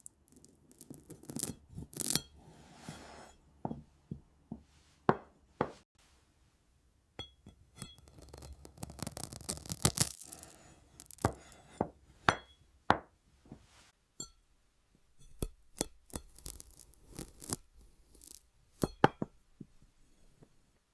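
Crisp glass crunching and clinking: irregular sharp cracks and snaps, with denser stretches of crunching about two seconds in and again around eight to ten seconds.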